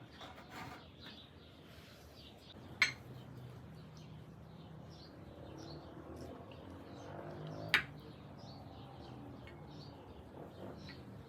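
Small birds chirping steadily in the background. Two sharp clinks stand out, about 3 seconds in and again about 8 seconds in.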